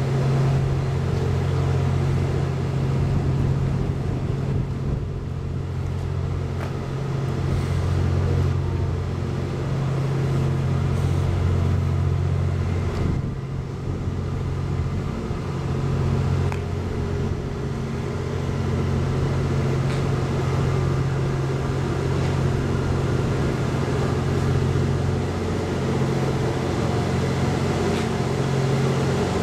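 Steady low hum of the Twilight Express Mizukaze's 87-series hybrid diesel train at a standstill: its underfloor diesel generator sets and equipment are idling. The deepest tones of the hum fade and return every so often.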